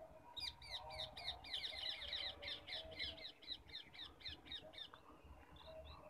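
Rose-ringed parakeet calling in a rapid series of short, repeated notes, about four or five a second, starting just after the beginning and stopping about five seconds in.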